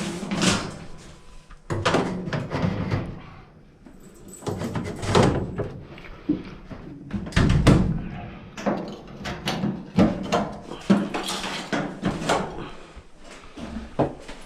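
Metal dryer cabinet parts being handled and fitted back in place: an irregular run of clanks, knocks and scraping.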